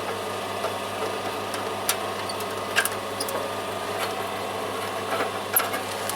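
A generator running steadily in the background, an even drone with a fixed pitch. A few sharp metallic clicks of hand tools on a nut and bolts cut through it, the loudest nearly three seconds in and near the end.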